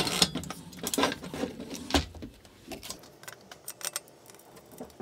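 Knocks and rattles of a partly built 3D printer's frame being handled and turned on a wooden workbench during the first two seconds or so, then only a few faint small clicks.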